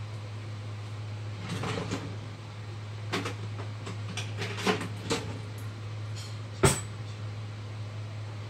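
Plastic bag crinkling and crackling as strips of food are pulled out and laid on a wooden cutting board, with a run of light clicks and knocks and one louder sharp knock near the end, over a steady low hum.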